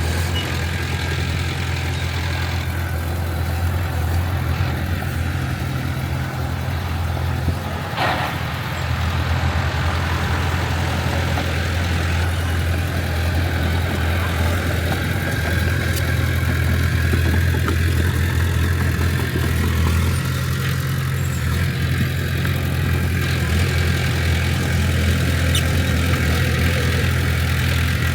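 Heavy diesel engine of a bulldozer at work running steadily, with a single sharp knock about eight seconds in and a little louder in the second half.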